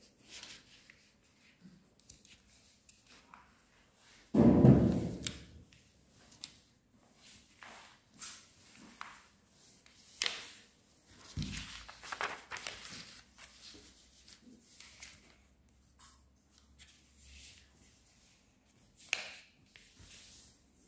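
A sheet of paper being folded and creased by hand on a tabletop: soft rustles and scrapes throughout. A loud thump comes about four and a half seconds in, and a lighter one near the middle.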